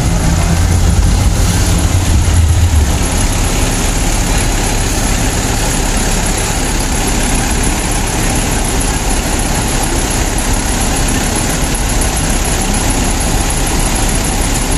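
Large bus engine running close by as a bus pulls past, loudest for the first three seconds or so. After that, the steady running of buses idling at the kerb.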